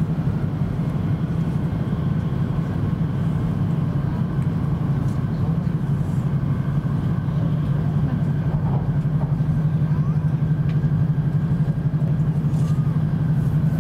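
Steady running noise inside the cabin of a Tohoku Shinkansen Hayabusa train in motion: an even, low rumble from wheels and track that holds at the same level throughout.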